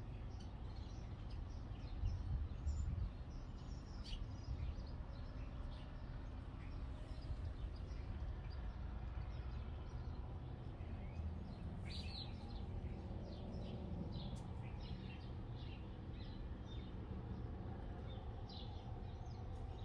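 Small birds chirping now and then over a steady low rumble, with a brief louder swell of the rumble about two seconds in.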